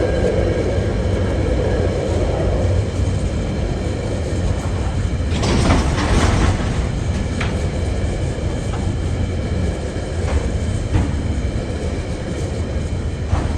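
TasRail freight train's wagons rolling slowly past with a steady low rumble, the wheels clicking over rail joints every second or so. A louder rush of noise rises and falls about five to six seconds in.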